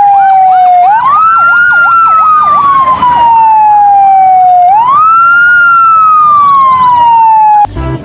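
Fire engine sirens: a wail that rises quickly and falls slowly about every four seconds, over a second siren yelping rapidly up and down. The sirens cut off just before the end.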